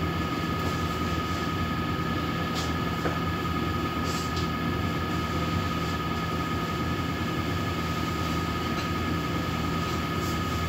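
A steady rumbling drone with a constant high tone running through it, cutting off suddenly at the end.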